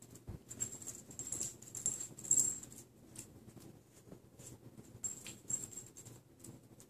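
A piglet and a puppy scuffling together on carpet: faint, irregular pattering taps, light clicks and rustles, coming in flurries, busiest in the first few seconds and again a little past the middle.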